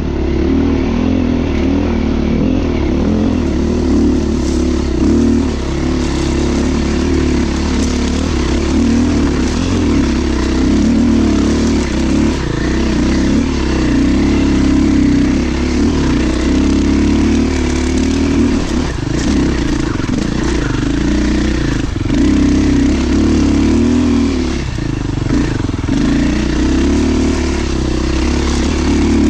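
Beta dirt bike engine running continuously, the throttle rising and falling as it rides, with a few knocks from the bike over rough ground.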